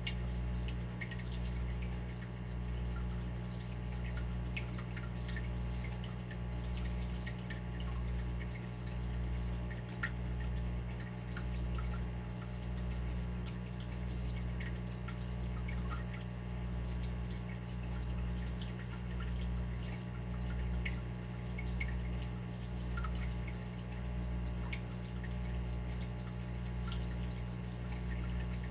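Water dripping and trickling, with many small drips scattered over a steady low hum that swells and fades about once a second.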